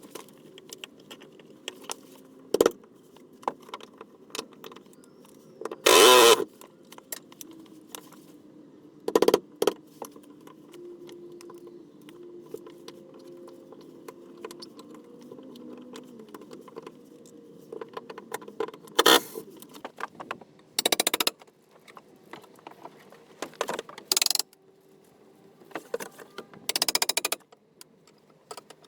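Irregular hand-tool work on wooden boat trim during disassembly: a series of sharp knocks, scrapes and metallic rattles, about seven loud ones with quieter clatter between, over a low steady hum.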